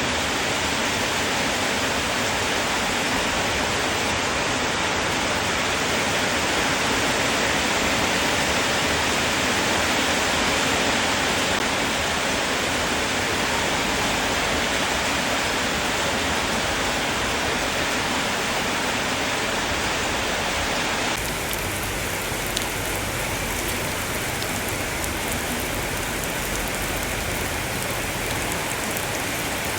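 Steady rain falling, an even hiss. About two-thirds of the way through the sound changes abruptly, becoming slightly quieter with scattered individual drop ticks.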